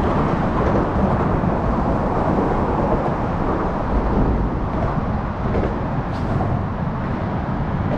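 Steady rumbling wind noise buffeting the microphone over open water, with no engine tone in it.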